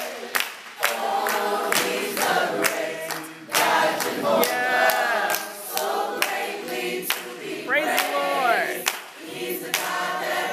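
Small gospel group, a man's and women's voices, singing in harmony, with hand claps keeping a steady beat.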